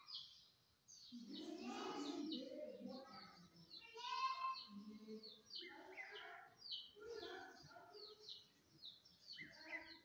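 Rose-ringed parakeet chattering softly. Quick high chirps mix with muttered, speech-like babble in short bursts, loudest about four seconds in.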